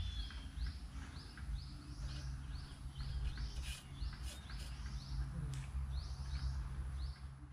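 A bird calling over and over, short falling chirps two or three a second, over a steady low rumble, with a few faint sharp clicks near the middle.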